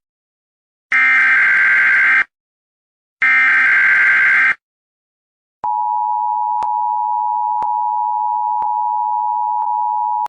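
Emergency Alert System tones: two screeching digital data bursts of the SAME header, each about a second long, then, about halfway through, the steady two-tone attention signal, a harsh unbroken beep with a faint tick about once a second.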